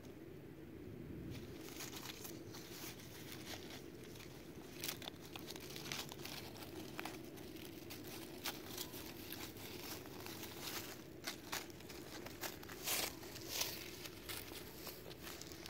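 Dry fallen leaves and dry grass crackling and rustling in irregular crunches as a Pomeranian puppy scrambles through them and paws at a hand. The crunches come a little louder and closer together near the end.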